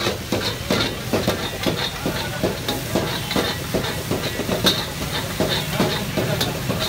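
Metal ladle and tongs scraping and clanking against a karahi wok about three times a second while meat sizzles in it over a steady hiss.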